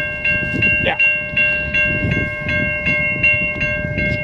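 Railway level-crossing warning bell ringing steadily, about three strikes a second, each strike ringing on over the next.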